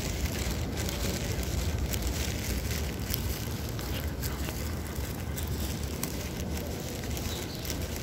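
Steady low rumble and hiss with a few faint clicks: ambient and handling noise picked up by a phone microphone carried while walking through a large mosque interior.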